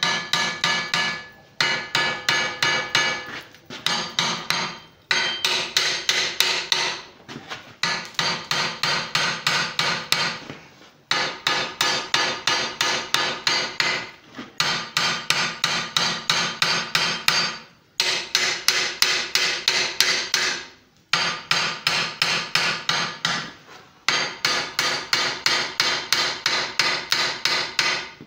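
A 1-pound ball peen hammer striking the red-hot corner of a steel bar clamped in a vise: rapid ringing blows, several a second, in runs of a few seconds with short pauses between. The blows are driving the hot metal into the corner to forge an upset square corner.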